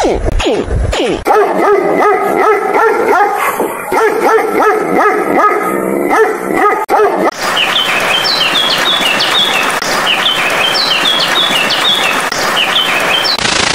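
Opens with a second of low pulsing, then a canine barks and yips in quick repeated calls. About seven seconds in it gives way to house sparrows chirping in short clusters over a steady hiss of rain.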